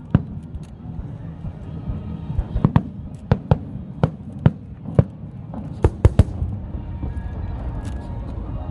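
Fireworks going off in sharp, irregularly spaced bangs, about a dozen in the first six seconds, thinning to fainter crackling near the end.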